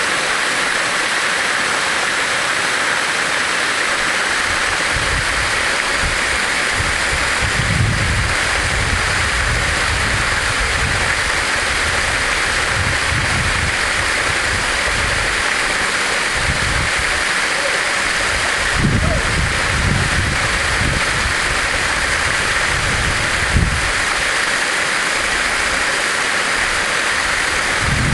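Waterfall pouring down a rock face: a loud, steady rush of falling water. Irregular low rumbles on the microphone come and go from about five seconds in.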